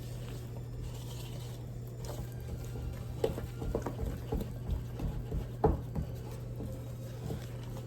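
A spoon working a wet, sticky dough in a mixing bowl: soft, irregular taps and squelches, over a steady low hum.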